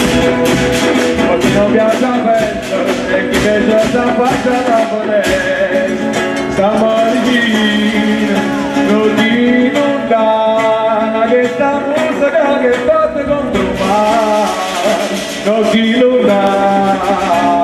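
Bottari 'pastellessa' music: strikes on wooden barrels, vats and sickles keep a fast, even beat under a singing voice and sustained instrument tones. The beat is dense for the first several seconds, then thins while the singing carries on.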